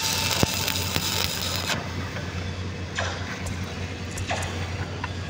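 Stick-welding arc crackling as a capping pass is run on a flat steel plate, cutting off a little under two seconds in as the arc is broken at the end of the run. A steady low hum carries on after it, with a few faint ticks.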